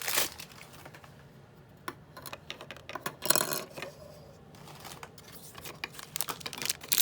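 Small plastic packaging and pieces of a collectible figure set being handled: scattered light clicks, with a short plastic rustle about three and a half seconds in.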